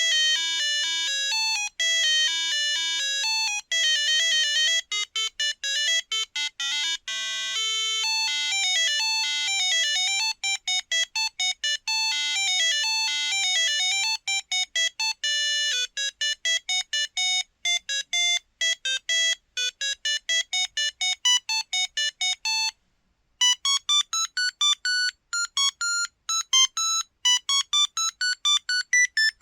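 Samsung Anycall SCH-X140 mobile phone playing monophonic ringtone melodies: quick electronic beeping notes, one at a time. After a short break about 23 seconds in, another tune starts with faster, choppier notes.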